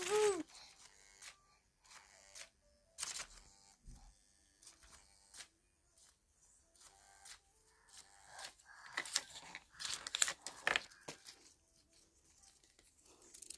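Scattered faint taps, clicks and rustles of a baby's hands on a plastic high-chair tray and a toy butterfly's plastic flower base, with a busier patch of handling noise about nine to eleven seconds in.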